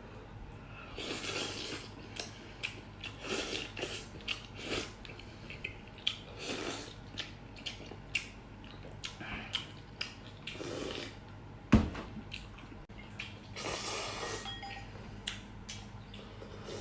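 A person eating mutton soup with potato noodles: repeated slurps and chewing, with light clicks of chopsticks or spoon against the bowl. One sharper knock comes about twelve seconds in.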